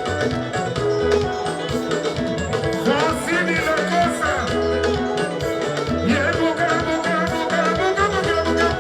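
Congolese rumba (soukous) band music played live: a steady bass line and interwoven guitar lines under a lead singer, whose sung phrases come in about three and six seconds in.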